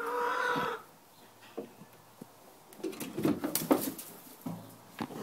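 A hen calls once, a drawn-out note at the start, then a cluster of knocks and rustles about three seconds in, from handling at the wooden nest boxes.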